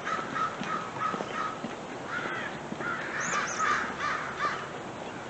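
Crows cawing, most likely American crows: a quick run of about five short caws, then a longer spell of several harsher, overlapping caws.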